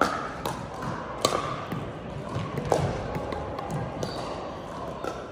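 Pickleball paddles striking hard plastic pickleballs on nearby courts: a scattering of sharp pops at an irregular pace, ringing in a large gym.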